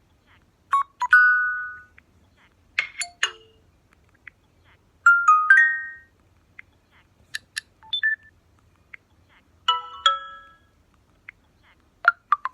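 LG K92 5G smartphone notification tones: about six short chimes, each one different, play one after another, spaced roughly two seconds apart.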